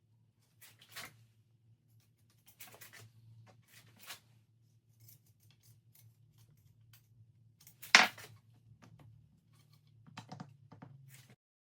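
Metal lathe headstock parts clicking and knocking together as they are handled and fitted: a few scattered knocks, one sharp knock about eight seconds in, and a quick cluster of small clicks near the end, over a faint steady low hum that cuts off just before the end.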